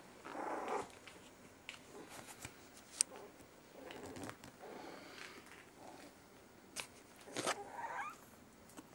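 Three-and-a-half-week-old miniature schnauzer puppies giving several short whines and small growls as they tussle, the loudest call wavering up and down near the end. A few sharp clicks fall between the calls.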